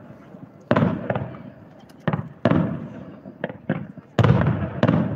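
Aerial firework shells bursting one after another: about seven sharp bangs, each trailing off in a rolling echo, the loudest about four seconds in.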